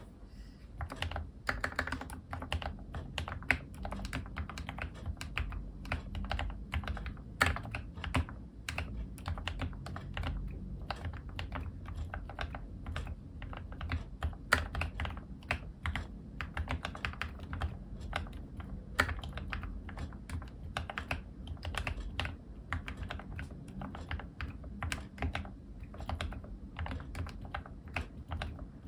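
Continuous typing on an ObinsLab Anne Pro 2 60% mechanical keyboard with lubed Gateron Red linear switches, lubed stabilizers and Cherry-profile keycaps, dampened with added case foam and switch-PCB foam. The key strokes are fast and irregular, with a few louder strokes standing out.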